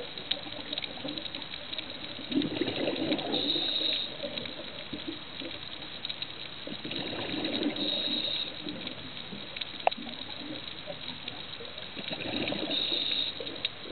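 Scuba regulator breathing heard underwater: three gurgling bursts of exhaled bubbles, about five seconds apart, over a steady water hiss, with a single sharp click about ten seconds in.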